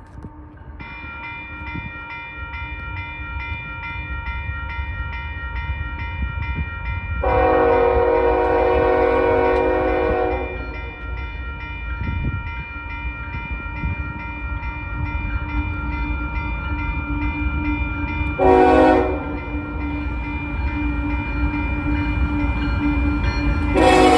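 Grade crossing bell ringing steadily from about a second in, while a Union Pacific GE ES44AC locomotive approaches with diesel rumble growing louder and sounds its air horn for the crossing: one long blast, a short blast, then another long blast starting near the end.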